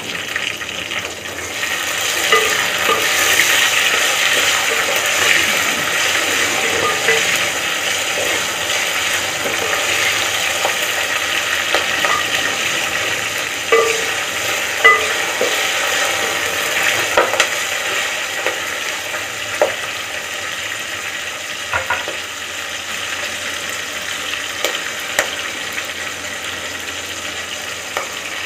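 Browned onions, green chillies and whole spices sizzling in hot oil in an aluminium pot while being stirred. A spoon knocks and scrapes against the pot now and then.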